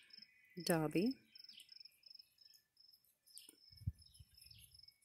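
Crickets chirping steadily in a high, even pulse of about four chirps a second. A brief low thump comes about four seconds in.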